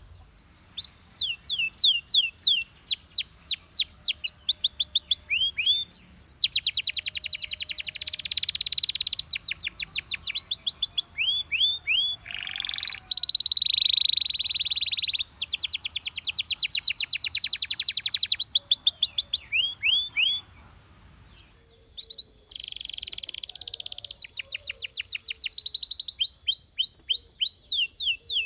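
Canary singing a long song built of tours of repeated syllables: fast trills and quick sweeping chirps, each tour changing to the next, with a brief pause about three quarters of the way through.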